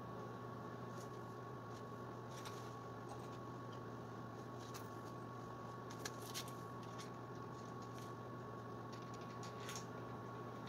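Faint, scattered clicks and clinks of hand tools and metal parts being handled during reassembly of a scooter's rear swingarm and axle bolts, over a steady background hum.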